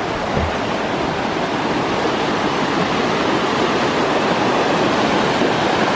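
Rushing water: a steady, loud, even rush that cuts in suddenly and grows slightly louder.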